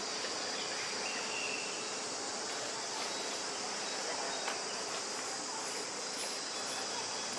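A steady, unbroken high-pitched insect chorus of crickets or cicadas.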